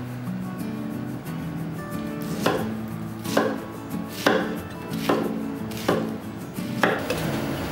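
Kitchen knife chopping fresh pineapple into chunks on a wooden cutting board: six firm chops, a little under one a second, starting about two and a half seconds in.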